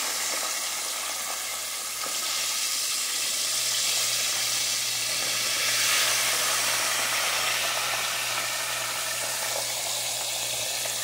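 Battered chicken tenders deep-frying in hot vegetable oil in a pan, a steady sizzle with a faint low hum underneath.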